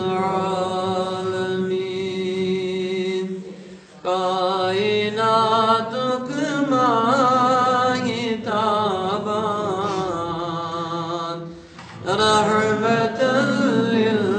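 A man's voice chanting devotional verse in long, drawn-out sung lines that waver in pitch, with two brief pauses for breath.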